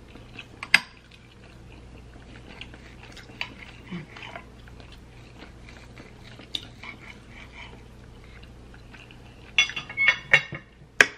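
Knife and fork cutting a cooked steak on a plate: quiet scraping and scattered small clicks of the cutlery against the plate. A few sharper clinks come near the end.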